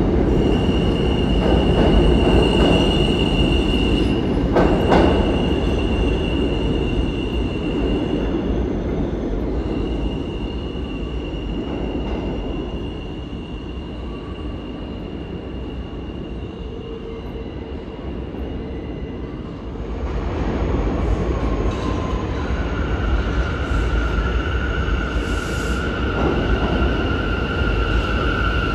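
New York City subway trains: a train pulls out of the station with a rumble and a steady high-pitched wheel squeal that fade as it runs off into the tunnel. About twenty seconds in, a Z train comes in with the rumble rising again, joined a few seconds later by a second steady whine as it pulls into the platform. A sharp click sounds about five seconds in.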